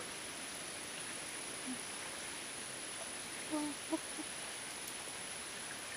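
Steady hiss of a shallow stream in forest, with a steady high-pitched whine above it. A few short, low-pitched animal calls stand out, once about two seconds in and a quick cluster around three and a half to four seconds.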